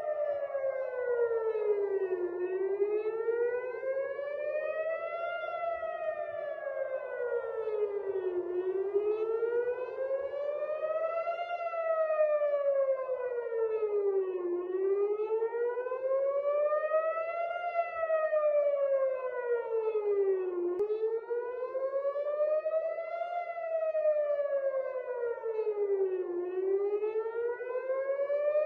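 Civil-defence air-raid siren wailing, its pitch rising and falling slowly about every six seconds: a warning of an incoming missile.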